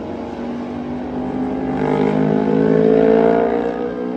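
Superbike racing motorcycle engines at high revs on track. They swell to their loudest about three seconds in, the pitch climbing slightly, then ease off.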